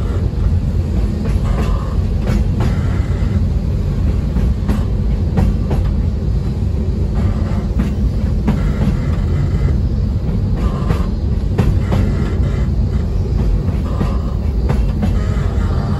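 Oigawa Railway Ikawa Line train running down the Abt rack incline, heard from on board: a steady heavy rumble with sharp clicks about once a second and a higher whine that comes and goes every few seconds. The train is descending with the rack locomotive leading, holding it back so it does not slide down the grade.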